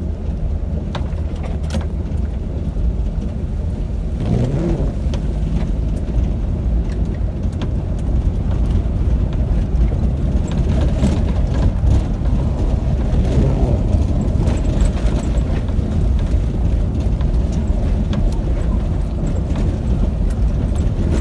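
Car interior on the move: a steady low rumble of engine and road noise.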